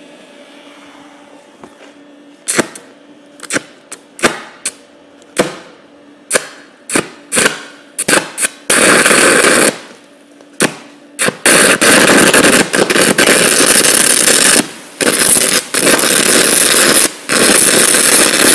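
Stick-welding arc from a makeshift flux-coated rod. Several short arc strikes die out within a second each, then the arc catches and crackles steadily for most of the rest, with a few brief breaks.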